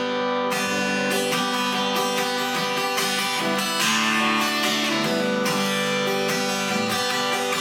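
Acoustic guitar strummed solo as the introduction to a song, with even, regular strokes and no singing.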